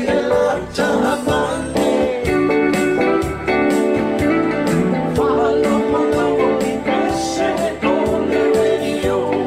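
A Samoan song performed live: a voice singing over steadily strummed, plucked-string accompaniment.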